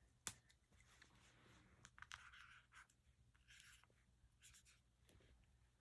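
Faint scratching strokes of a permanent marker writing a name on a fabric clothing label, with a sharp click just after the start.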